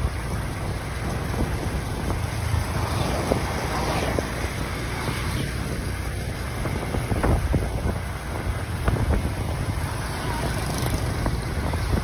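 Riding on a motorbike through scooter traffic: wind rushing over the microphone with the steady engine and road noise of the bike, and a few light knocks.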